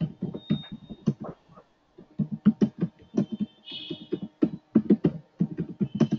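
Typing on a computer keyboard: a quick, irregular run of key clicks, with a short pause about a second and a half in.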